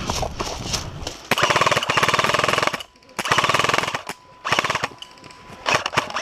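Airsoft guns firing rapid full-auto bursts: one long burst about a second in, then three shorter bursts.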